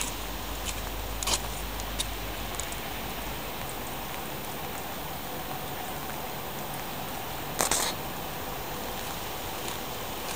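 Steady rain falling on wet paving, a continuous even hiss, with a few sharp taps of drops, the loudest cluster about three-quarters of the way through.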